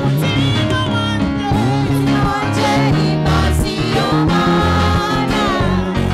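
Gospel choir of women singing a praise song together into microphones, backed by a band with prominent bass and drums keeping a steady beat.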